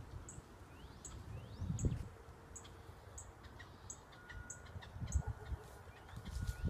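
Birds calling in woodland: a short high chirp repeating about twice a second, with two rising whistled notes about a second in. Low thuds come and go underneath.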